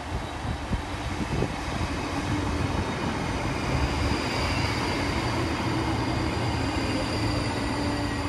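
A Class 458 Juniper electric multiple unit, two units coupled, running into the station alongside the platform. Wheels rumble on the rails under a steady high whine. It grows louder over the first few seconds as the train comes past, then holds steady.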